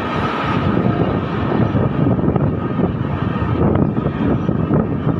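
Express passenger train running, heard from beside the coach: a steady, loud rush and rumble of wheels on the rails and moving air.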